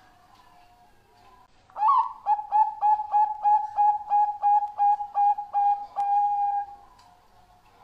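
Zebra dove (Bangkok-bred perkutut) singing its cooing song: about two seconds in, an opening note followed by a fast run of about fifteen short coos, ending in one longer held coo.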